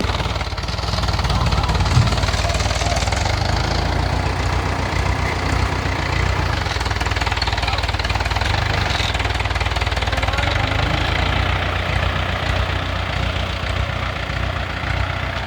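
An engine running steadily at a constant speed, with a single knock about two seconds in.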